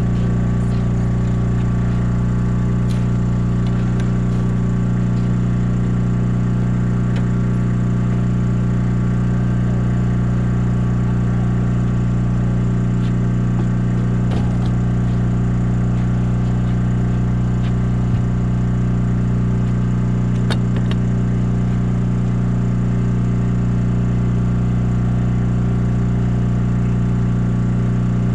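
Small gasoline generator engine running at a constant speed, a steady drone that does not change, with a few light clicks and knocks from the boat deck.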